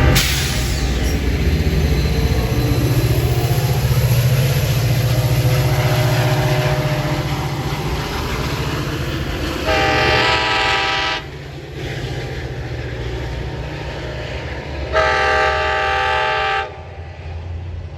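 Metra commuter train running on the rails with a steady low rumble, then two blasts of its multi-note air horn, about ten and fifteen seconds in, each about a second and a half long.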